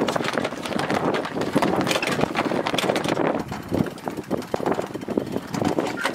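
Yacht's mast winch ratcheting in fast, irregular clicks as the crew winch in a halyard to hoist the sail.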